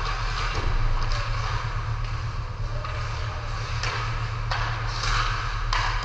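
Ice hockey play in a rink: skates scraping the ice and sticks working the puck, with several sharp knocks in the second half, over a steady low hum.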